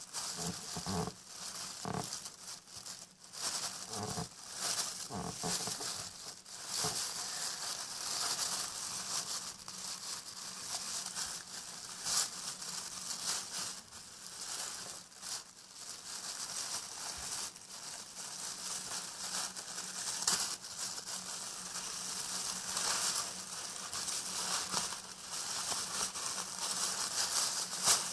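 A plastic refrigerator bag holding a soapy sponge being squeezed and handled: continuous irregular crinkling of the plastic with scattered sharper crackles and the squish of soapy foam inside.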